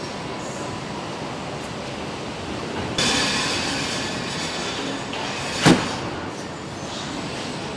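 Steady machinery noise of a car assembly hall. About three seconds in, a sudden hiss starts and fades over a couple of seconds. About two-thirds of the way through comes one sharp bang: a car's bonnet being slammed shut.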